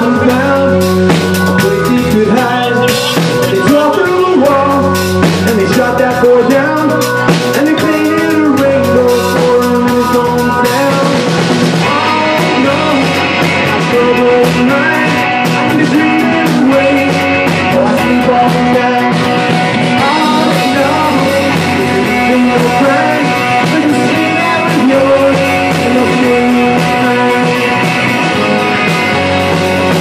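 Live rock band playing: electric guitar, bass guitar, drum kit and keyboard, with a man singing lead. The drums hit cymbals hard and often for about the first ten seconds, then settle into a lighter groove.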